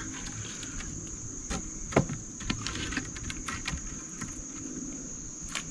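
Insects trilling in a constant high drone, with scattered clicks and snaps and a single louder knock about two seconds in.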